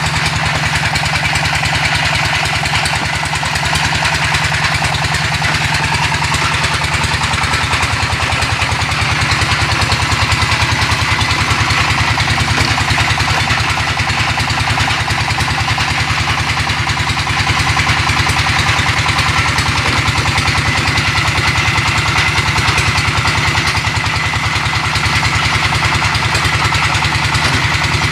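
Brick-making press machine running steadily with a fast, even mechanical rattle.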